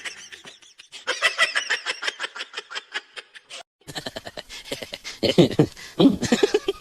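A person laughing in quick, repeated bursts; the sound cuts off sharply past the middle, then more laughing voices follow.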